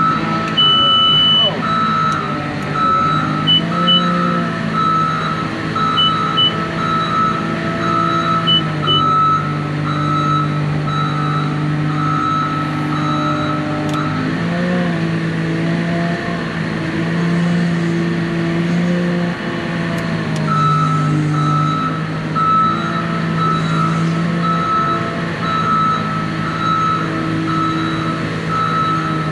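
Wheel loader's diesel engine running, its pitch lifting and settling with the throttle, with the pulsing beep of its reversing alarm about one and a half times a second. The alarm stops a little before the middle and starts again about two-thirds of the way through; a few short, higher beeps sound in the first third.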